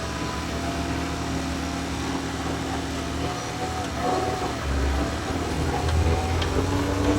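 John Deere 410 backhoe's diesel engine running, revving up and getting louder about two-thirds of the way through.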